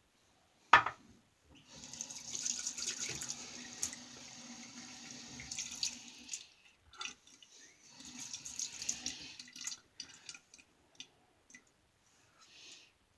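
Water running from a tap into a sink in two spells of a few seconds each. A single sharp click comes just before the first spell.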